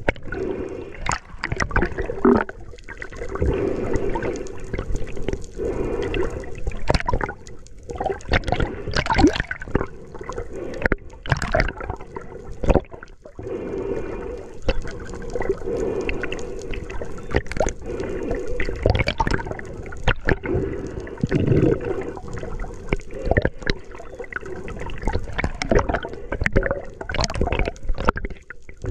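Sea water sloshing and gurgling around the camera, with irregular splashes and bubbling surges and no steady rhythm.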